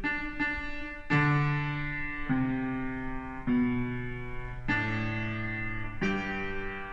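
Upright piano played by hand: chords struck about once a second, each left to ring into the next.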